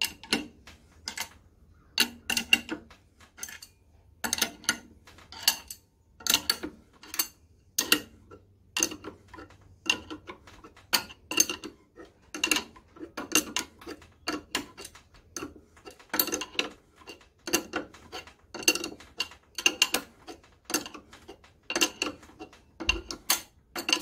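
An adjustable wrench clicks against the nut of a screw puller as it is turned in short strokes, drawing the wet cylinder sleeve out of an antique IHC Type M engine. Sharp metallic clicks come in pairs or small groups, a little over once a second.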